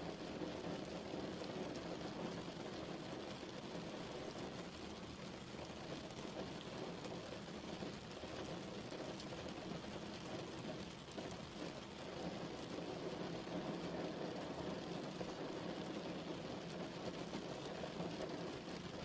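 Steady rain falling, an even hiss of drops without breaks or thunder.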